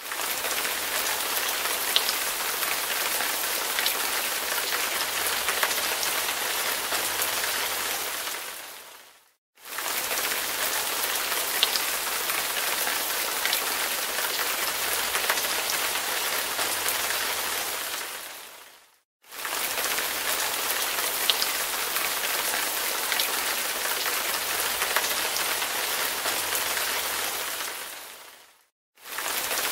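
Steady rain falling on a surface, with occasional single drop ticks. The same stretch of recording is looped, fading out to a moment of silence and back in about every nine and a half seconds.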